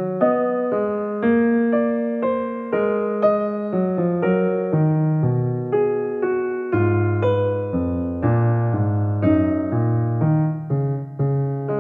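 Background music: a piano playing chords and a melody, each note struck and fading, about two notes a second.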